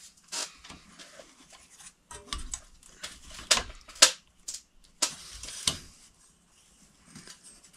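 Wires and metal scraping and clicking in a steel electrical junction box as an old wire is worked loose and pulled out, in short irregular scrapes with a couple of sharper clicks around three and a half to four seconds in.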